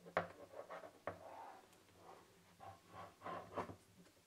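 Handling noise from a white plastic motorized turntable base: a sharp click near the start, then irregular small clicks and rubbing of plastic as the power plug is seated and the unit is turned in the hands.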